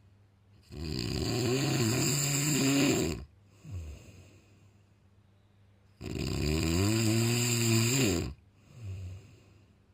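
A person snoring: two long snores of about two and a half seconds each, roughly five seconds apart, each followed by a shorter, fainter sound.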